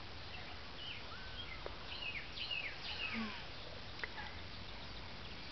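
Faint high-pitched animal calls: a scatter of short, quickly falling chirps and a few longer calls that bend in pitch, over a low steady background.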